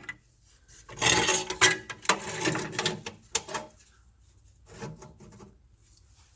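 A drawer being slid along its rails, scraping and rubbing in a few strokes for about two and a half seconds, then once more briefly near the end; on this test fit it does not run freely.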